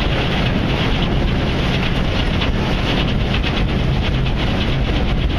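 Wind buffeting the microphone aboard a car ferry under way, over a steady low drone from the ferry.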